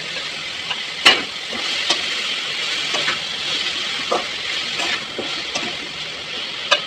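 Chopped tomatoes and browned onions sizzling in hot oil in a kadai, with a steady frying hiss. A spoon scrapes and knocks against the pan several times as it stirs, the sharpest knock about a second in.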